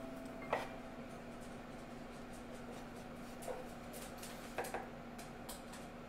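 A few light clicks and taps of a plastic container lid and a metal spoon as potato starch is scooped out, with a pair of taps a little past the middle, over a faint steady low hum.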